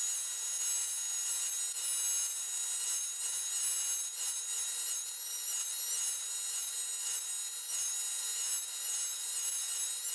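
Mini lathe running with a steady high-pitched whine while abrasive paper is held against the spinning aluminium part, adding a rubbing hiss: the finished part is being polished.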